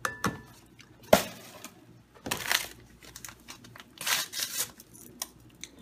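A sharp knock, then two rustling bursts of crinkling as a paper seasoning packet is handled and worked at to tear it open.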